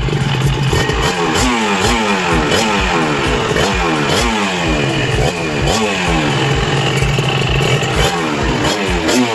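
Kawasaki KRR 150's two-stroke single-cylinder engine being revved over and over, its pitch climbing and falling back repeatedly.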